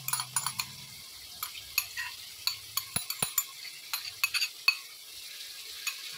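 Metal spoon clicking and scraping against a bowl and the pot rim as yogurt is scraped into a pot of beef and kachnar buds frying over high heat, with a faint sizzle underneath. Two sharper clicks come about three seconds in.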